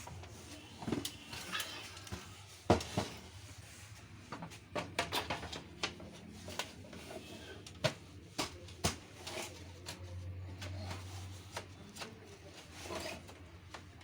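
Irregular clicks and knocks as a Canon LBP 2900 laser printer's parts are handled and fitted, with one sharper knock a few seconds in.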